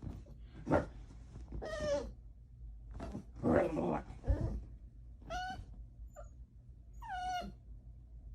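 A pet animal giving about four short, pitched cries, the later ones sliding down in pitch.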